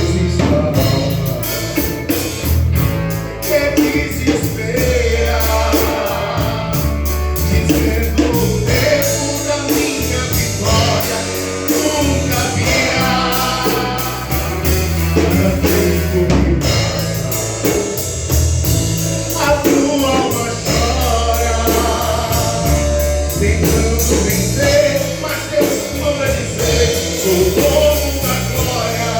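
A gospel band performing a song: singing over a full band with drums.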